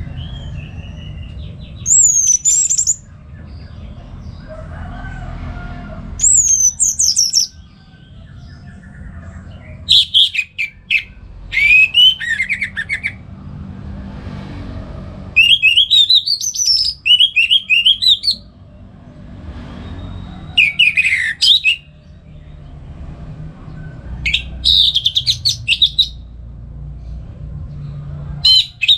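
Orange-headed thrush singing in full, open song: short bursts of quick, varied rising and falling whistles and trills, one phrase every few seconds, over a steady low background rumble.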